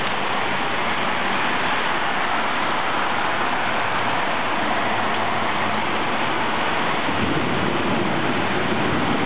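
Heavy rain pouring steadily, a dense even hiss. A low rumble builds in underneath about two seconds before the end.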